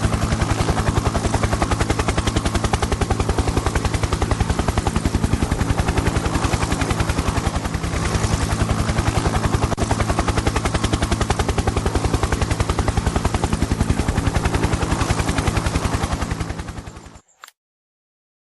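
Helicopter rotor chopping in a fast, even beat over a steady low engine hum, then cutting off abruptly near the end.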